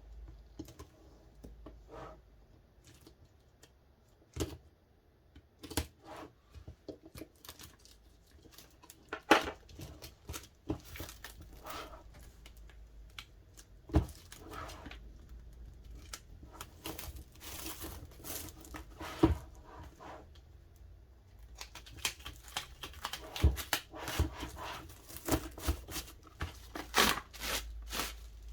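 DVD packaging being torn open and crinkled, with scattered clicks and knocks as the package is handled, busier in the second half.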